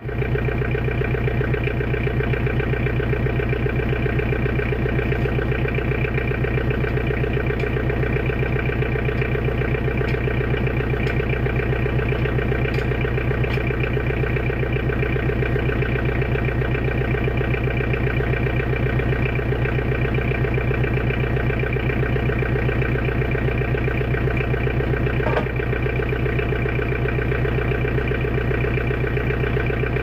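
Mahindra tractor's diesel engine idling steadily, with one light metallic knock about 25 seconds in.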